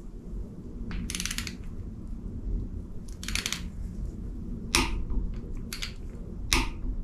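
Click-type torque wrench ratcheting on the cam sprocket bolt of a Pontiac 350 as it is tightened toward 45 ft-lb: short bursts of rapid ratchet clicks about a second in and about three seconds in, then a few single sharp clicks near the end.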